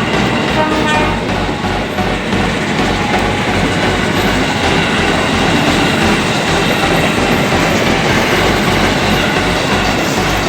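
Taksaka express passenger train passing close by, a steady loud rumble of wheels on the rails with clattering over the rail joints and the hum of the diesel locomotive.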